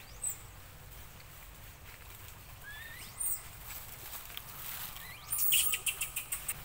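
A bird's thin whistled call sweeping sharply upward, given three times about two and a half seconds apart. Near the end comes a burst of dry crackling and clicking.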